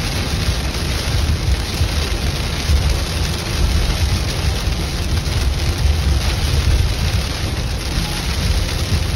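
Heavy rain falling on a car's roof and windshield, over a steady low rumble of road and tyre noise, heard from inside the moving car's cabin.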